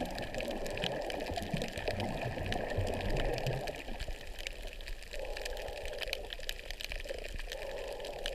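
Water sloshing and bubbling close to the microphone in uneven surges, with scattered small clicks.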